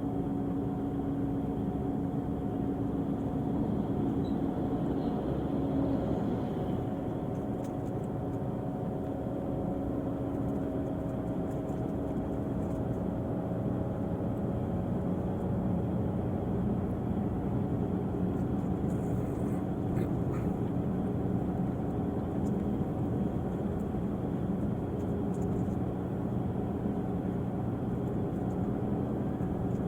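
Volvo diesel engine of an Irizar i6s coach running steadily, an even drone with only slight changes in pitch.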